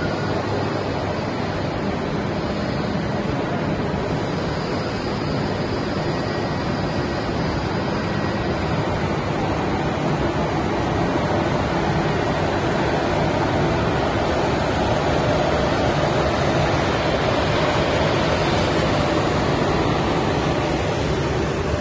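Steady machinery noise of an EPE foam sheet extrusion line running, with its motors and blower going as foam sheet is produced. It is an even rushing noise with a faint low hum that grows slightly louder about halfway through.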